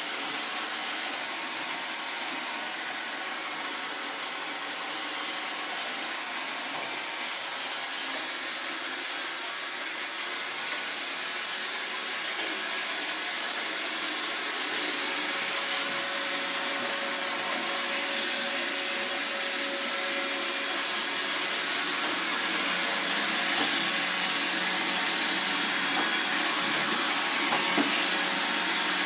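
iRobot Roomba robot vacuum cleaner running, a steady rushing hum that grows gradually louder.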